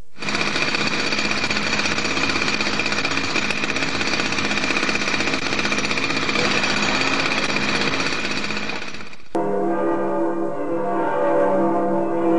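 A loud, fast, continuous mechanical hammering rattle, like a jackhammer, that cuts off suddenly about nine seconds in. It is replaced by several steady, bell-like ringing tones.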